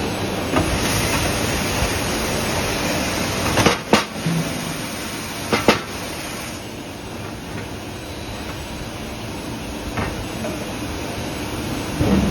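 Steady machinery hiss and rumble of a hot-forging shop, broken by sharp metal clanks: a pair about four seconds in, another pair near six seconds, and a lighter one about ten seconds in.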